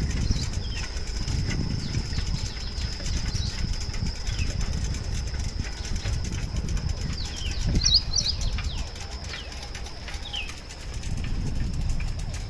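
Outdoor morning ambience with birds: short, falling chirps scattered throughout, a quick cluster of them about eight seconds in. Underneath run a steady high thin whine and an uneven low rumble.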